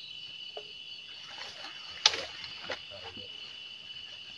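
Steady high-pitched chorus of crickets, with a few faint clicks and one sharp loud click about two seconds in.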